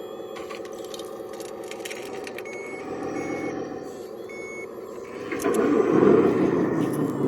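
Radio-controlled model construction machine running with a steady motor hum and a few short, high reversing beeps. About five seconds in, a louder, rougher mechanical noise sets in.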